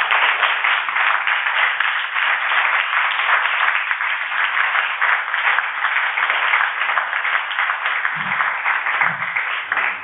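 A room full of people applauding: many hands clapping together in a dense, steady applause.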